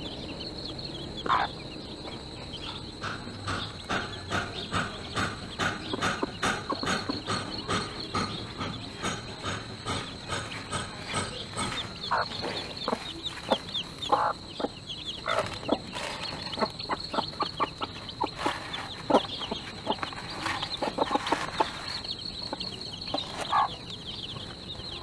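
Mother hen clucking to her chicks in a steady run of short clucks, about two a second, with the chicks' high peeping over it. In the second half come sharper clicks and taps and a few louder single clucks.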